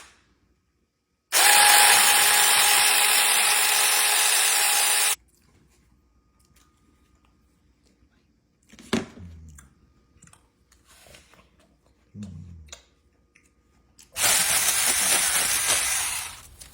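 Small chainsaw running in two loud, steady bursts: the first about four seconds long and cutting off sharply, the second starting near the end. Between them are a few short knocks.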